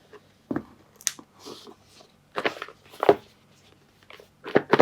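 Small cardboard game box being gripped and pried at, its lid stuck too tight to come off: a series of short scrapes and knocks of cardboard, about one every second.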